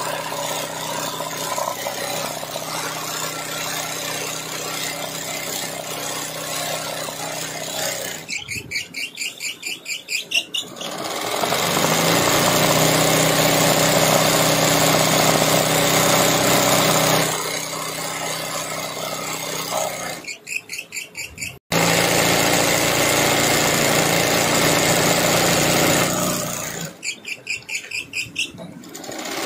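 Electric sewing machine running fast, its needle stitching free-motion embroidery through fabric stretched in a wooden hoop. Three times it slows until the single needle strokes can be heard, stops briefly, then runs up to speed again.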